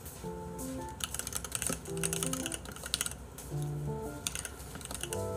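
Background music of short held notes, with several bursts of rapid computer-keyboard typing over it.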